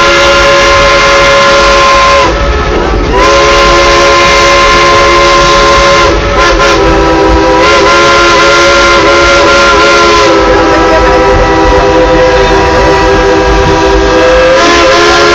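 Dollywood Express steam locomotive's chime whistle being played as a tune: long, loud blasts of a chord of several notes, with a short break about two seconds in and shifts in pitch later on.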